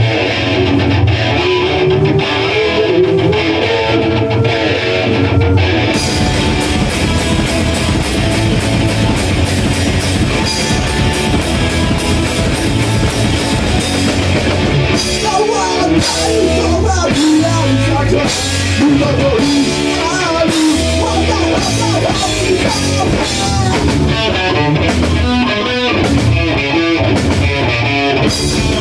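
A rock band playing live: electric guitar and drum kit, loud and steady, getting fuller about six seconds in.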